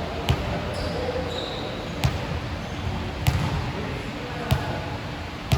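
Basketball bouncing on a court: five sharp bounces a second or so apart, over a steady background murmur.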